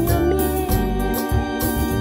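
Electronic keyboard playing held organ-voice chords over a steady bass line, with a light ticking beat, as accompaniment to a highlife gospel song.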